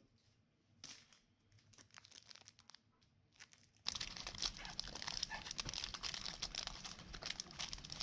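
A foil snack wrapper being torn open and crinkled by hand: a dense run of crackling that starts about four seconds in, after near silence.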